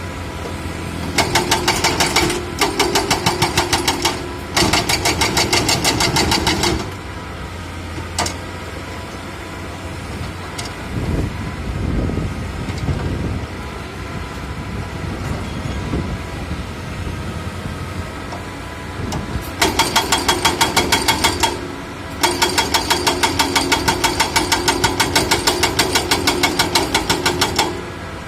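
Construction excavator's diesel engine running steadily, broken by four spells of rapid, even metallic pounding at about six to eight blows a second. Each spell lasts a few seconds; the last and longest comes near the end.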